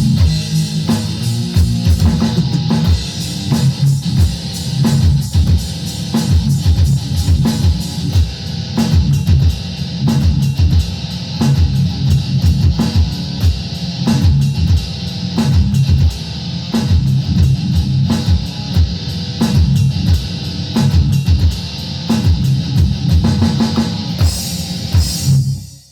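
Rock music played on guitar and drum kit, with a fast, steady beat of drum hits under the guitar. The playing stops suddenly near the end.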